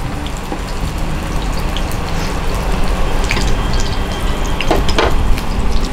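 Minced-chicken patties shallow-frying in a little oil in a nonstick pan: a steady sizzle with scattered pops and crackles, a few sharper ones between about three and five seconds in.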